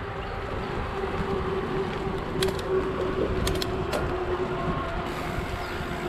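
Mountain bike rolling along a dirt singletrack: continuous tyre and trail rumble with a steady hum, and a few sharp ticks a little past the middle.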